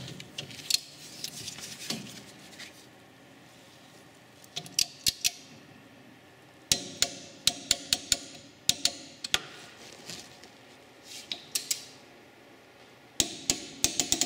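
Ratcheting torque wrench and spanner tightening a brake caliper bolt: short runs of sharp metallic clicks and clinks, a few at a time, with quiet pauses between the runs.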